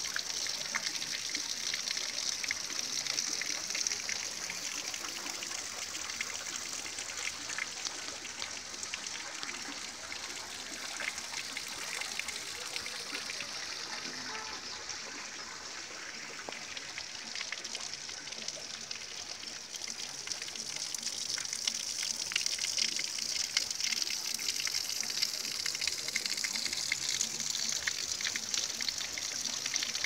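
Water splashing steadily down a small rock waterfall into a pool, a continuous gushing trickle with fine droplet splashes. It grows quieter through the middle and louder again toward the end.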